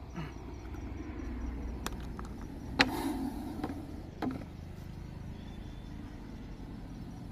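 A steady low rumble with three sharp knocks, the loudest about three seconds in.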